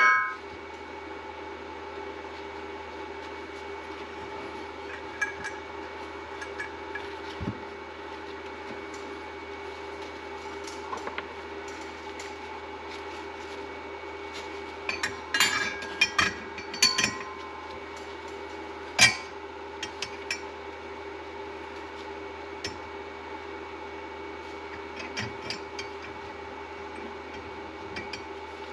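Snowmobile clutch parts and hand tools clinking and tapping now and then, with a cluster of clinks about halfway through and one sharp knock a few seconds later, over a steady hum.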